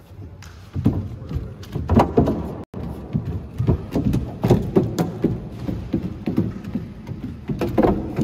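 Feet of a Unitree Go1 quadruped robot knocking on OSB plywood as it walks over a raised wooden course: a quick, uneven patter of hollow wooden thuds.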